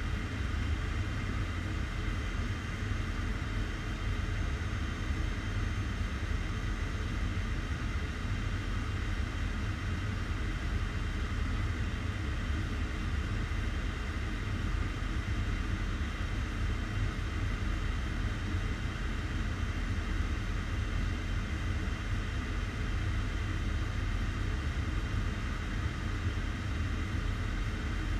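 Steady cockpit noise of a Boeing 757 in flight: a constant low rumble of airflow and engines with faint steady high tones over it, unchanging throughout.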